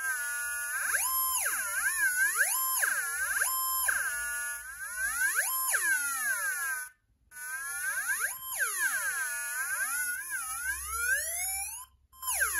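Breadboard theremin kit playing through its small speaker: a tone rich in overtones that swoops smoothly up and down in pitch as a hand moves near the wire-loop antenna, the pitch rising as the hand comes closer. The tone cuts out briefly about seven seconds in and again near the end.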